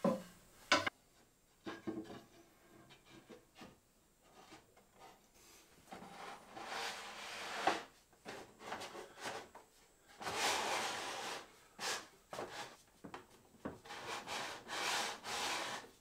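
Wooden drawer boxes sliding in and out along wooden drawer runners in a table frame, wood rubbing on wood in several long strokes in the second half, with a sharp knock about a second in. This is the first test fit of the drawers on their runners.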